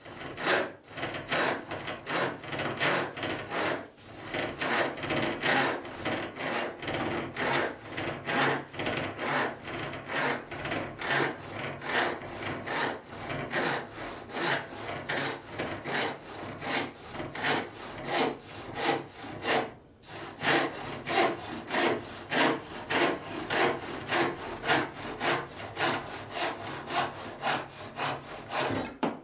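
Wooden-handled handsaw ripping down the grain of a thin pine board, in steady rasping back-and-forth strokes at about two a second, with brief pauses twice.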